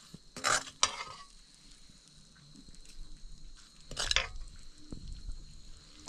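A metal utensil scraping in a cooking pot: three short scrapes, about half a second in, just under a second in, and about four seconds in, over a faint low rumble.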